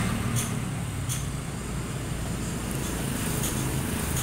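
Steady rumble of road traffic, with a few faint light clicks.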